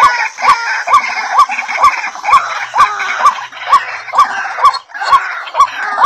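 Repeated calls of a white-breasted waterhen: a short note hooking upward in pitch, about twice a second, each with a sharp click, over a dense background hiss.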